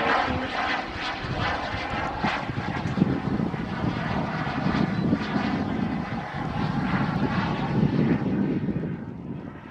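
The turbine engine of a radio-controlled T-45 Goshawk model jet running in flight: a steady whine over rushing air. It gets somewhat quieter near the end.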